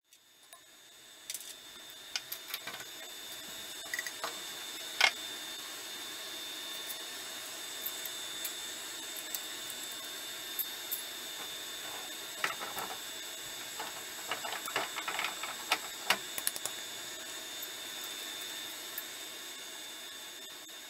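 Scattered metal clicks and clinks as a lathe's milling attachment and tool holder are adjusted by hand and with an open-end wrench. The sharpest click comes about five seconds in and a run of them comes past the middle, over a faint steady high whine.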